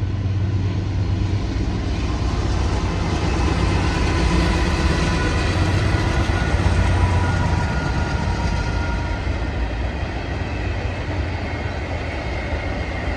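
Train running by: a steady low rumble with faint, steady high tones above it, easing off slightly over the last few seconds.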